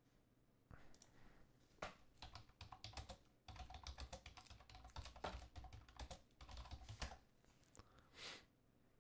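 Faint typing on a computer keyboard: a run of quick key clicks that stops shortly before the end.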